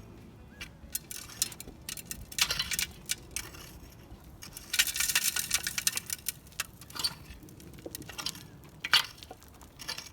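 Metal shovel digging into rocky dirt: irregular scrapes and clinks of the blade striking stones, with a longer scraping stretch about five seconds in.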